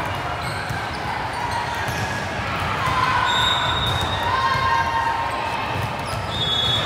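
Volleyball gym during play: balls bouncing and being struck on the court, echoing in the large hall, with brief high squeaks twice, in the middle and near the end.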